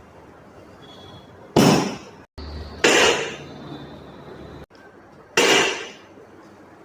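Three sudden sharp thuds from chiropractic adjustment thrusts: one about a second and a half in, another about three seconds in, and a third about five and a half seconds in, each dying away quickly.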